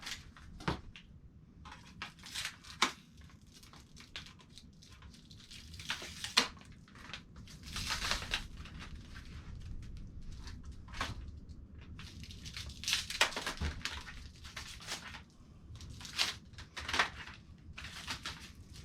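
Packaging crinkling, rustling and tearing in irregular bursts as LED grow light bars are unpacked from their box, with a few sharp knocks.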